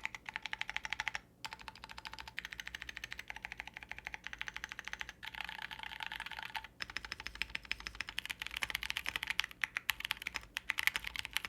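Close-up typing test on a gasket-mounted Kinetic Labs TG67 V2 mechanical keyboard with Penguin switches and Candy Shop keycaps: a fast, steady stream of key clacks, broken by a few short pauses.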